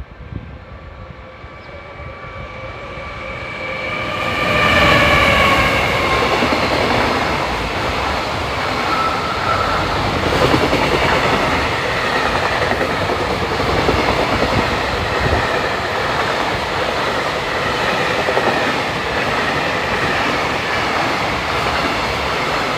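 JR Freight EF210 electric locomotive hauling a high-speed freight train past at speed. A rising rumble with a whine that drops in pitch as the locomotive passes about five seconds in, then a long, steady clatter of wagon wheels over the rail joints.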